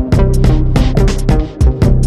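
Experimental UK bass electronic music: rapid, sharp drum hits over a steady deep bass and pitched synth tones.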